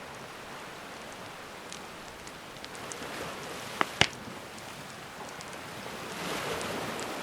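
Campfire crackling with scattered small pops and two loud snaps about four seconds in, over gentle ocean waves washing in, a wave swelling near the end.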